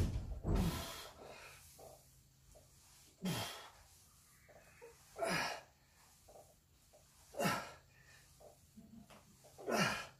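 A man's forceful exhales while doing single-arm dumbbell thrusters, one short breath about every two seconds, five in all. The first comes with a low thump.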